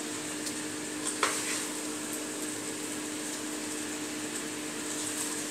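Pasta being spooned out of a pan onto a ceramic plate over a steady sizzling hiss from the pan on low heat, with one sharp clink of the spoon against the dish about a second in.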